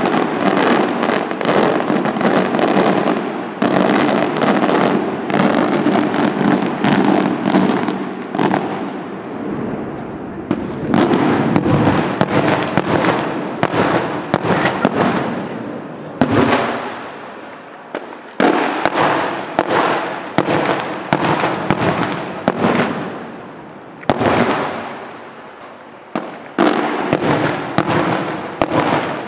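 Aerial fireworks display: shells bursting overhead in a dense, rapid run of bangs and crackling, which swells and dies away in waves, with new volleys starting suddenly every few seconds.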